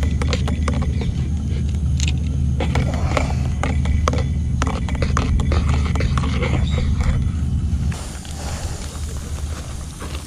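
Heavy wind rumble on an action camera's microphone with many quick rattling clicks, as from a mountain bike on a rough trail. The rumble drops off sharply about eight seconds in.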